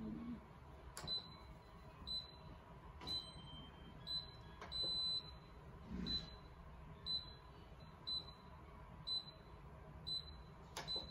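Instant Pot electric pressure cooker's control panel beeping as its buttons are pressed: short high beeps about once a second, with one longer beep about halfway through.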